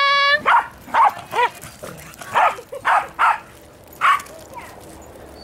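A dog barking repeatedly in short, high-pitched barks, about eight of them, stopping about four seconds in.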